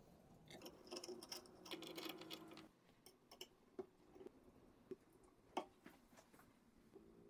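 Faint clicking and light metallic ticks from a long hex driver turning a bolt in the aluminium gantry plate, busiest in the first two and a half seconds, then a few scattered single clicks.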